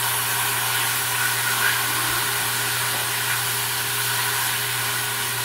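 Marinated beef sizzling steadily in a hot, dry pan while a spatula stirs and turns it.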